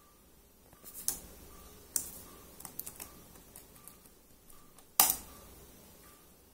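Computer keyboard being typed on: scattered key clicks, with one louder keystroke about five seconds in as the command is entered.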